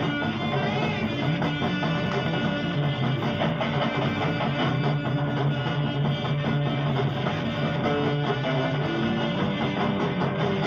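Heavy psych rock playing from a 45 rpm vinyl single, with electric guitar to the fore over a steady band sound.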